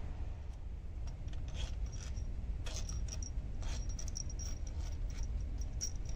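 Light metallic clicks and clinks of a hand tool and small bolts as the bolts holding the camshaft hub cover are undone, with a run of quick ticks about four seconds in.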